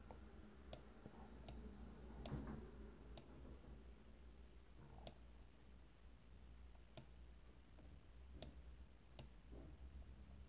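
Faint computer mouse clicks, about ten sharp single clicks at irregular spacing, over a low steady hum.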